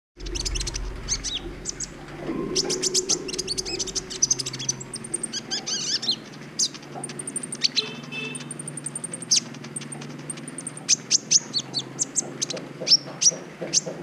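A young kolibri ninja sunbird singing in its cage: quick runs of high, sharp chirps and twittering trills, with a fast string of short notes near the end.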